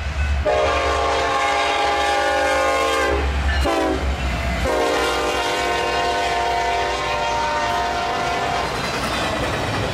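Locomotive air horn sounding a long blast, a short one, then another long blast, over the low rumble of a train.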